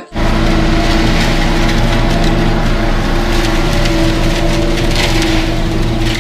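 Concrete mixer truck's diesel engine running steadily as the truck drives slowly past, a loud drone under a rough, noisy rumble.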